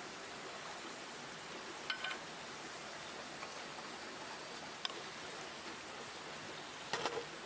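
Sliced onions and shallots sizzling steadily in oil in an aluminium kadai, with a few light taps of a wooden spatula against the pan as they are stirred.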